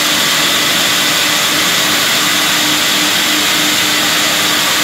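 Steady, loud whir and hiss of running woodworking machinery, such as a log band saw, with a faint broken hum underneath.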